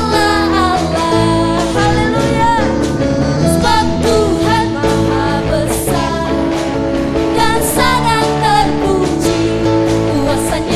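Praise-and-worship music: voices singing over a live band with guitar.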